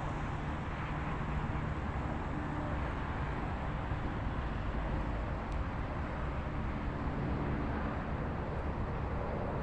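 Steady low rumble of a vehicle engine, with a constant hum that neither rises nor falls.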